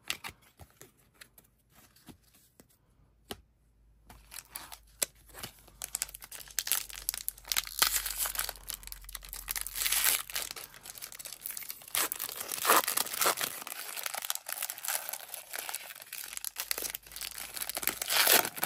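A trading-card pack wrapper being torn open and crinkled. A few light clicks come first, and the tearing and crinkling start about four seconds in and grow louder a couple of seconds later.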